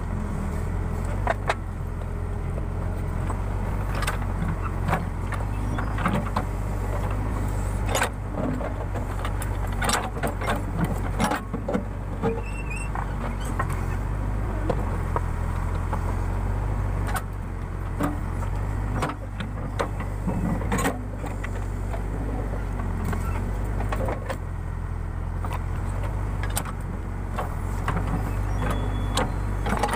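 Case 580 Super K backhoe loader's diesel engine running steadily while digging, with repeated clanks and knocks from the bucket and boom.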